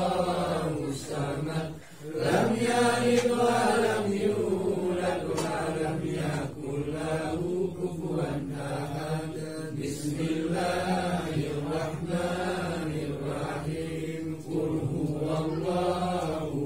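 Men's voices chanting an Islamic tahlilan recitation, a continuous sing-song chant whose pitch rises and falls slowly, with a short break about two seconds in.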